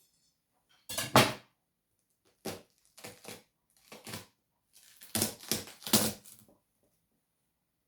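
Close-up crunching of watermelon being bitten and chewed: a series of crisp, juicy crunches, the loudest about a second in and a quick run of several more a little past halfway, stopping shortly before the end.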